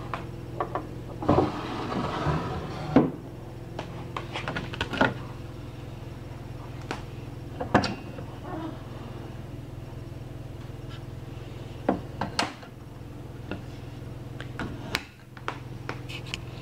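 Drawer and wooden doors of a Victor Victrola VV-405 record-player cabinet being opened and shut by hand: a scatter of wooden knocks, bumps and clicks, the loudest about three seconds in, over a steady low hum.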